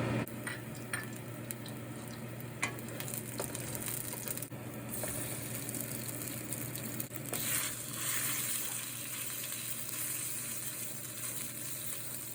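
Food frying in hot oil in a pan and being stirred, a steady sizzle with a few light utensil clicks early on. The sizzle grows louder a little over halfway through.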